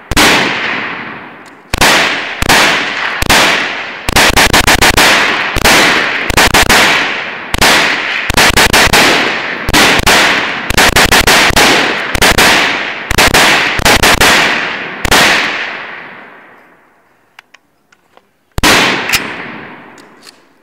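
AK-pattern rifle in 7.62x39 fired rapidly in a magazine dump: fast strings of loud shots with brief breaks, each trailing off in an echo. The firing stops about 15 seconds in, and a single shot follows a few seconds later.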